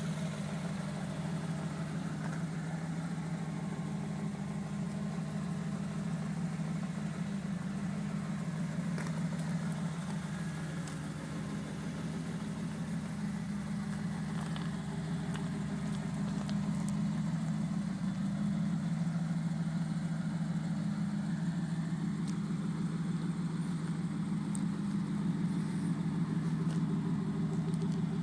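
A 1988 Pontiac Trans Am GTA's 305 cubic inch (5.0 L) tuned-port-injected V8 idling steadily, a little louder in the second half.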